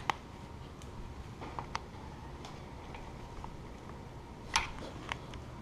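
Scattered clicks and taps of gloved hands and a hand tool fitting pod air filters onto a motorcycle's carburetors, the loudest click about four and a half seconds in.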